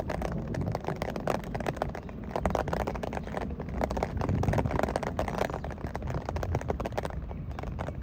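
Heavy rain, a dense irregular patter of drops striking hard surfaces over a steady low rumble.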